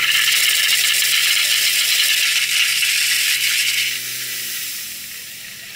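High-pressure water jet hissing out of a fire hose nozzle, with the steady hum of the fire pump's engine underneath. About four seconds in the hiss drops sharply and the engine hum fades away soon after.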